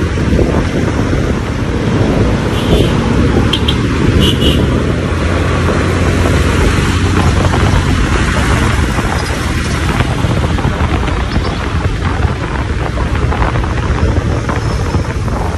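Steady rumble of a motorcycle riding on a road, engine and tyre noise mixed with wind buffeting the microphone. A few short, faint high-pitched chirps come about three to four seconds in.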